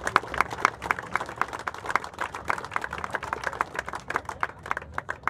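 Crowd applauding: many hand claps together, thinning out near the end.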